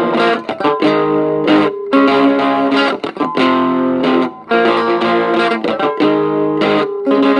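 Electric guitar playing chords in a short phrase that repeats about every two and a half seconds, with a brief break between phrases.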